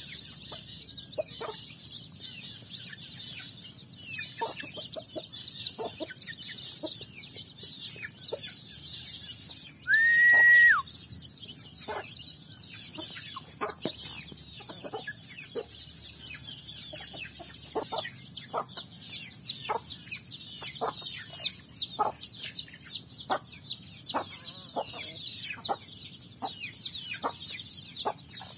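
Free-range chickens feeding: hens clucking in short, repeated notes and chicks peeping almost without pause. About ten seconds in comes one loud, clear whistle-like note, held just under a second.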